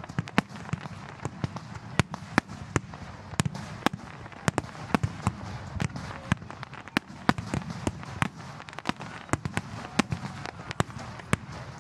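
Fireworks going off in rapid, irregular succession: sharp cracks and pops, several a second.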